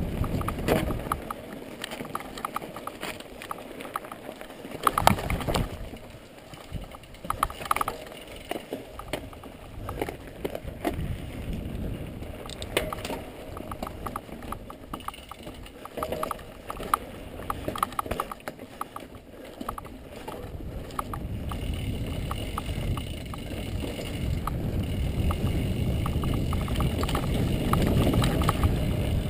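Mountain bike rolling over a rocky dirt trail, the bike rattling and knocking on each bump, over a low rumble of wind on the microphone that grows louder in the last several seconds.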